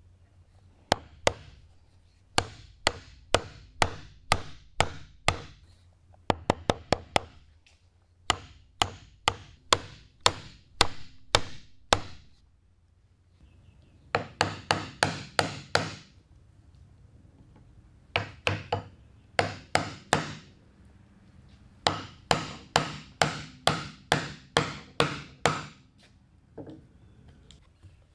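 Mallet striking a chisel into wood in runs of quick, sharp blows, with short pauses between the runs.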